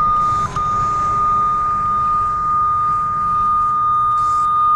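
Cable locator receiver sounding a steady high-pitched tone, with a brief break about half a second in: its signal tone while tracing a coax cable energised by a signal clamp.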